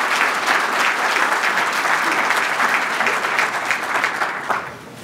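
Audience applauding, a dense steady patter of many hands clapping that dies away near the end.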